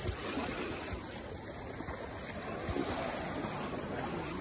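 Gentle waves lapping on a sandy shore, a steady wash of water.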